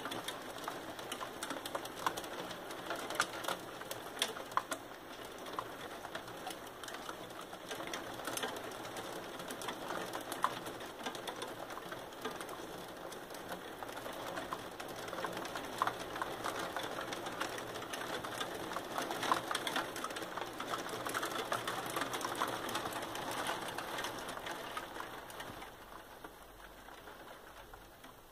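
Hail and rain hitting the glass pane of a wooden roof window, a dense stream of rapid small ticks that thins and fades over the last few seconds.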